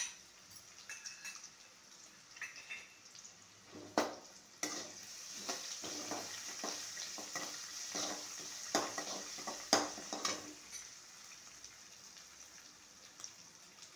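Garlic, ginger, curry leaves and whole spices sizzling in hot oil in an aluminium kadai while a flat spatula stirs and scrapes them around the pan. There are a few sharp knocks of the spatula on the pan, about 4 and 10 seconds in, and the sizzle is strongest in the middle.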